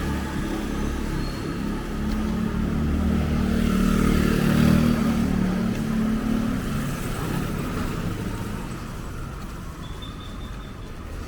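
A motor vehicle passes on the street with a low engine rumble. It grows louder to a peak about four to five seconds in, then fades away.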